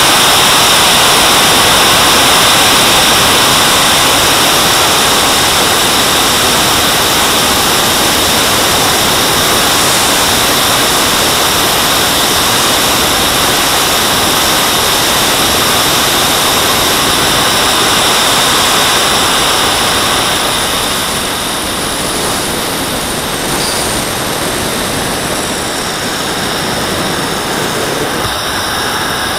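JetCat model jet turbine running steadily with a high whine over rushing air, heard close up from on board the Boomerang Elan. It quietens a little about two-thirds of the way through as the model comes down to land on the runway.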